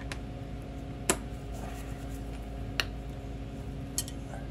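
Three short, sharp metallic clicks of hand tools being handled, about a second, three seconds and four seconds in, over a steady low hum.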